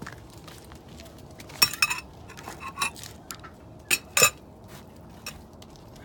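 Handling of metal dishes or lids: a string of sharp ringing clinks and clanks, the loudest pair about four seconds in.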